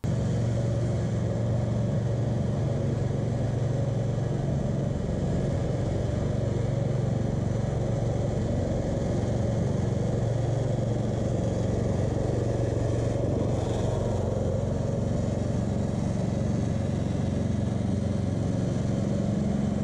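Small petrol engine of a cylinder (reel) lawn mower running at a steady speed while mowing.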